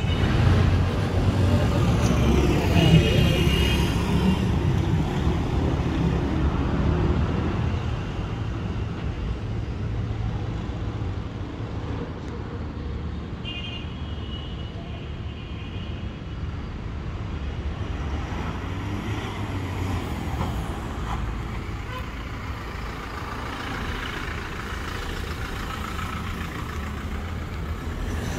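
Toyota Fortuner SUV engine driving past, loudest a few seconds in as it goes by, then running on more quietly. Two brief high-pitched tones sound, a few seconds in and again midway.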